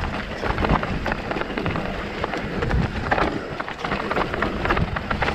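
Electric mountain bike rattling down a rocky, cobbled trail: tyres crunching over stones and a constant clatter of knocks from the bike. A low rumble of wind on the microphone runs under it.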